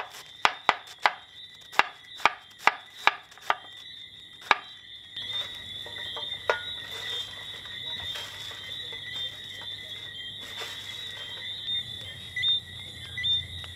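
Large knife chopping a head of cabbage on a wooden cutting board, about nine quick chops over the first four and a half seconds, then softer rustling as the vegetables are mixed by hand. A steady high-pitched drone runs underneath throughout.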